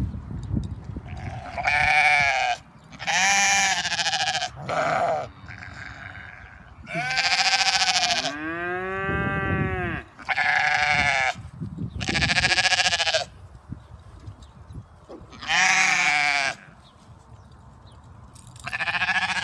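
Sheep bleating, about nine calls from several animals with quiet gaps between. One call near the middle is deeper and longer than the rest.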